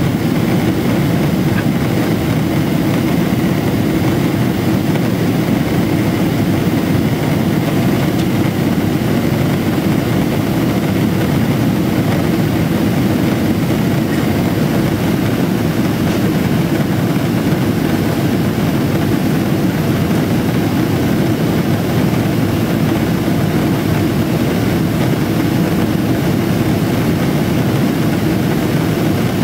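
Steady cabin noise inside a Boeing 777-300ER climbing out after take-off: the low drone of its GE90-115B engines and air rushing past the fuselage, unchanging throughout.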